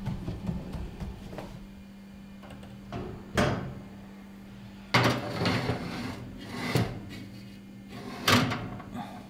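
Bompani gas cooker's oven door being opened and a metal baking pan handled on the oven rack: four sharp clunks and clatters a second or two apart, over a steady low hum.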